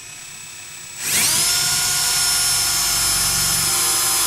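Power drill with a large titanium-coated high-speed steel bit, boring into a 2x4. It runs softly at first, then speeds up about a second in and holds a steady high whine at full speed.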